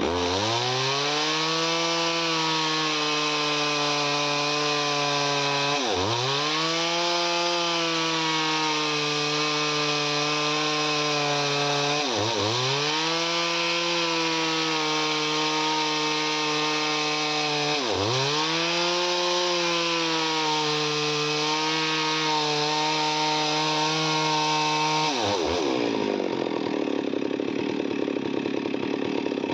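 Chainsaw running at high revs while cutting wood. The engine pitch dips sharply and recovers three times, about six seconds apart, and near the end the sound turns rougher and the pitch falls.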